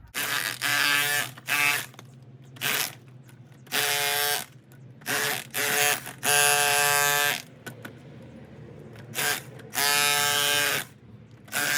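Electric chipping hammer running in about ten short bursts, each under a second to about a second long, with a buzzing hammering pitch: it is chiselling the old covering off a stone wall.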